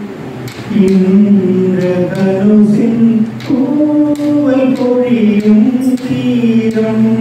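A man singing into a handheld microphone, holding long, drawn-out notes that bend from one pitch to the next.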